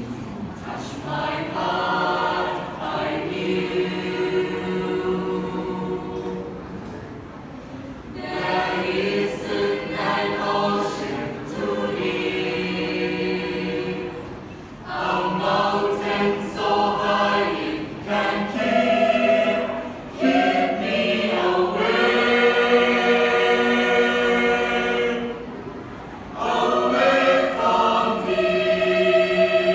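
A choir singing in harmony, several voices holding sustained notes together in phrases separated by short breaths.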